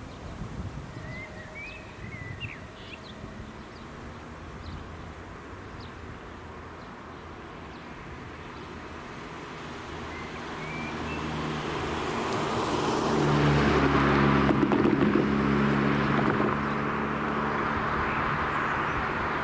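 A car approaches, passes close by about 13 to 16 seconds in with engine hum and tyre noise, then drives off. Before it, birds chirp faintly a few times.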